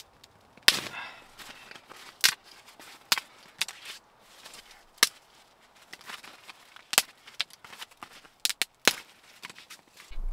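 Dry twigs and thin branches being snapped by hand for kindling: a dozen or more sharp cracks at irregular intervals.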